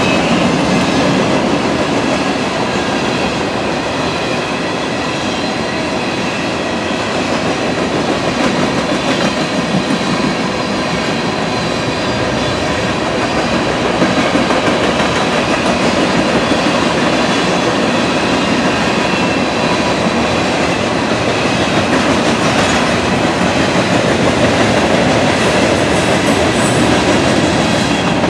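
Freight cars of a mixed train rolling past, steel wheels running on the rails in a loud, steady din of wheel and rail noise.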